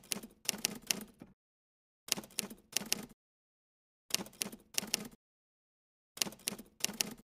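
Keyboard-typing sound effect in four short runs about two seconds apart, each a quick cluster of sharp clicks, with dead silence between the runs.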